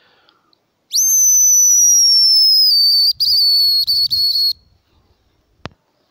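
Homemade hazel grouse call blown in one long, thin, high whistle that rises sharply and then slides slowly down, breaking into a few short stuttered notes at its end. It imitates the plain, unlovely whistle of a hazel grouse hen, to lure a bird. A single sharp click follows near the end.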